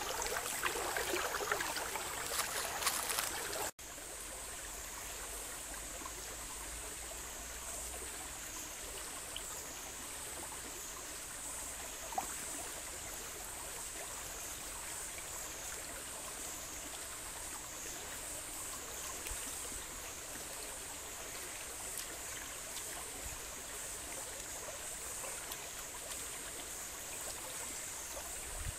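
Shallow stream running over rocks: a steady rush of water. It is louder, with small clicks, for the first few seconds, then turns into a steadier, softer flow after an abrupt cut. A high, slowly wavering hiss sits above it throughout.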